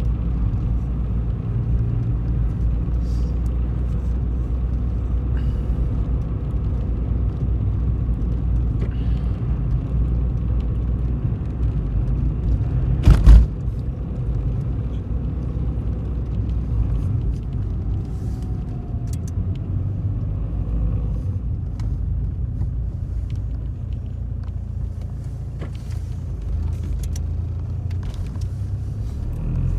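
Steady low rumble of a car's engine and tyres heard inside the cabin while driving. One sharp, loud thump about halfway through.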